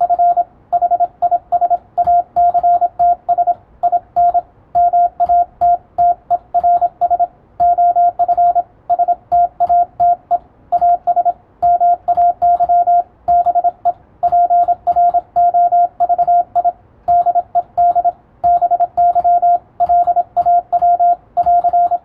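Morse code (CW) in English plain text: a single steady tone keyed on and off in dots and dashes, with short gaps between words. Faint clicks sound under the tone.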